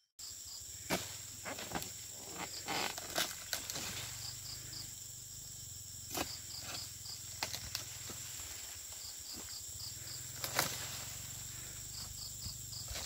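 Insects buzzing steadily at a high pitch with repeated chirping, broken by several sharp knocks as a pole-mounted harvesting blade strikes the frond bases of an oil palm, the loudest about a second in and near ten and a half seconds.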